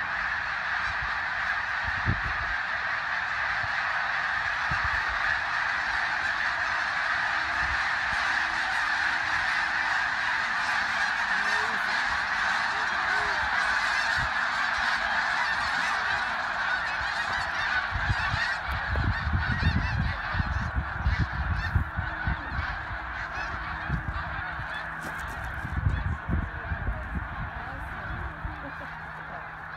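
A vast flock of snow geese taking off, thousands of honking calls blended into one dense, continuous din. In the second half, low rumbles on the microphone come and go, several louder than the flock.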